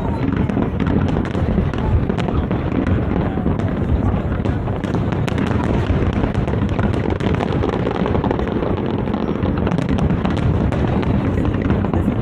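Fireworks display with shells bursting in an unbroken rumble of booms, overlaid by many sharp crackles and pops.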